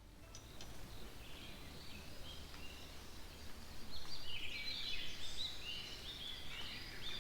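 Small birds chirping and twittering, many short calls overlapping, busiest about four to five seconds in, over a low steady outdoor rumble.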